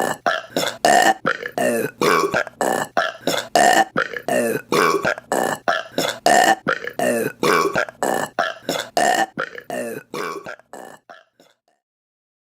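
A rapid string of short, loud burps, about three a second, each with a gliding pitch; they taper off and stop about a second and a half before the end.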